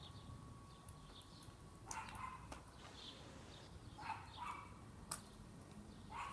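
Short animal calls repeating three times, about two seconds apart, with one sharp click between the last two.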